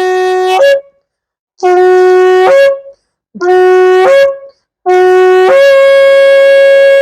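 Ram's-horn shofar blown in a series of blasts for Yom Teruah: one blast cuts off just after the start, then two short blasts that each break upward in pitch at the end, then a long blast that jumps up to a higher note and is held.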